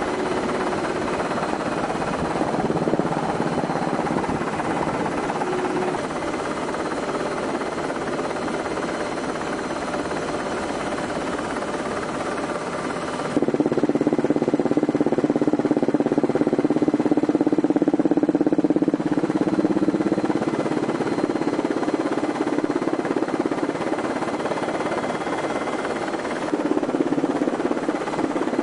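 Steady drone of an aircraft's engines heard from inside the cabin, with a faint high whine. About halfway through it jumps abruptly louder and deeper.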